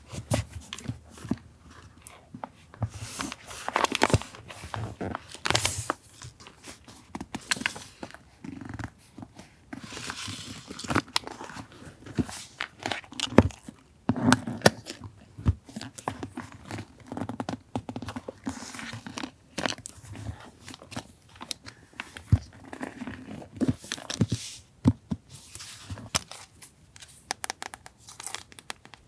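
Paper and stationery being handled: rustling and crinkling with stretches of tearing, among many small taps and clicks.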